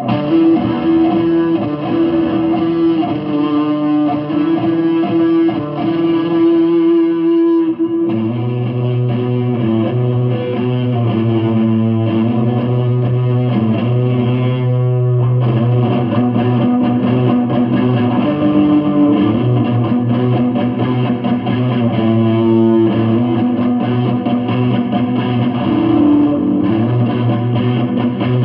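Solid-body electric guitar played through an amplifier with effects, holding sustained notes and chords over a steady low tone, the passage changing about eight seconds in and again about halfway through.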